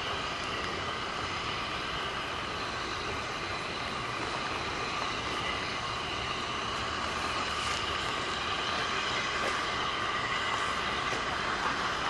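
SR U class steam locomotive No. 1638 moving slowly at low speed, with a steady hiss of escaping steam that grows a little louder as it approaches.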